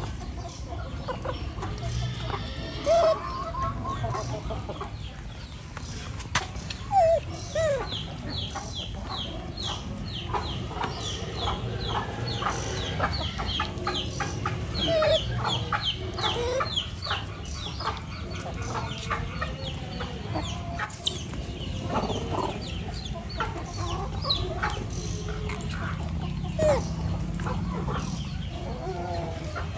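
Chickens clucking, with a run of quick high chirps in the middle and a few short, sharp squeals, the loudest about two-thirds of the way through.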